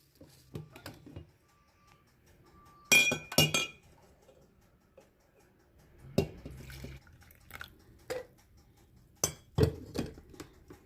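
Cups and utensils clinking and knocking while black coffee is poured and served, with two loud ringing clinks about three seconds in and scattered knocks later.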